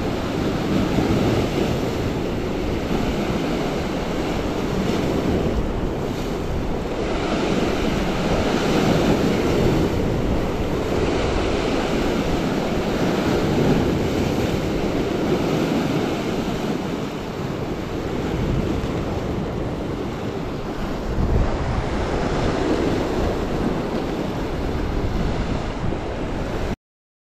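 Lake waves breaking and washing against a rocky shore, swelling and easing every few seconds, with wind buffeting the microphone. The sound cuts off suddenly near the end.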